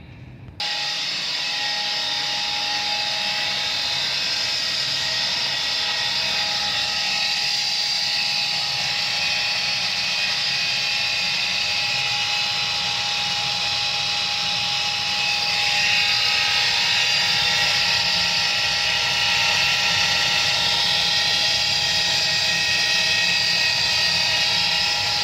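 Viessmann Vitodens 100 condensing boiler's combustion fan running hard at full power, a steady whine with several tones, starting abruptly just after the start and shifting slightly in pitch about halfway through.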